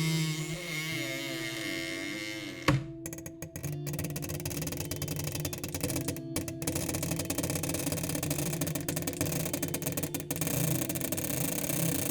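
Old apartment-building elevator: a steady hum, a single sharp knock a little under three seconds in, then the lift machinery running steadily.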